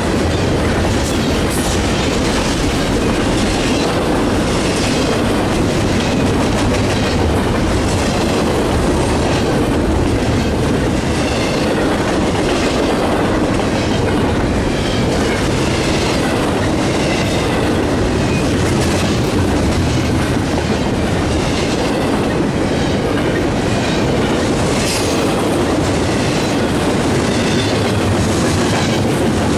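A train rolling past close by on the BNSF Chicago Subdivision, its cars giving a steady loud rumble throughout. Over it runs a regular clickety-clack of wheels striking rail joints.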